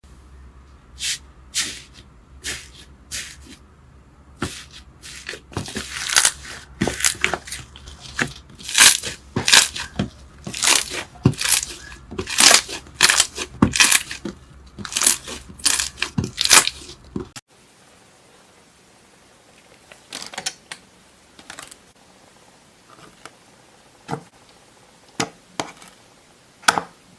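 Slime being squeezed and stretched by hand, giving a quick run of sharp crackling pops and clicks. About seventeen seconds in, the sound changes abruptly to a quieter stretch with only a few scattered pops.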